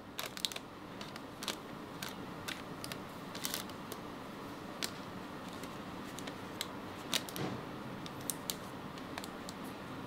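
Kitchen handling sounds: irregular light clicks and taps of small objects and utensils over a steady low background noise.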